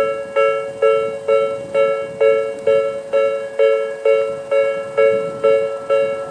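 Japanese railway level-crossing warning bell of the Tobu 'sound B' type ringing: an electronic, bell-like ding repeating about twice a second, each strike fading before the next.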